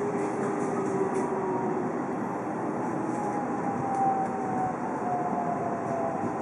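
JR Central 313-series motor car heard from inside the passenger cabin: its Toshiba IGBT-VVVF inverter and C-MT66A three-phase induction traction motors give a whine that falls slowly in pitch as the train slows. Under it the wheels rumble on the rails, with a couple of rail-joint knocks about a second and about four seconds in.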